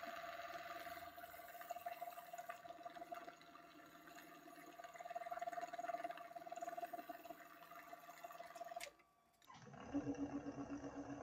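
Wood lathe running with a steady motor whine while wet abrasive paper hisses against the spinning CA-finished pen blank, wet sanding the glue finish flat. About nine seconds in the sound cuts out abruptly, then a lower, steady lathe hum resumes.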